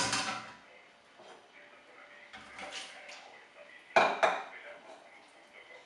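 Kitchen dishes and metal utensils clattering: a knock at the start, some lighter clinking in the middle, and two loud sharp clacks in quick succession about four seconds in.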